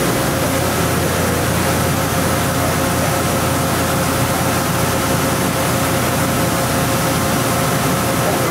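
2006 OKK VP600 five-axis vertical machining center running: a steady mechanical hum with a held whine.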